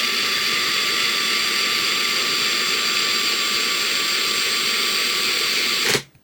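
A machine running steadily: a loud, even hiss with a constant high-pitched whine. It cuts off abruptly about six seconds in.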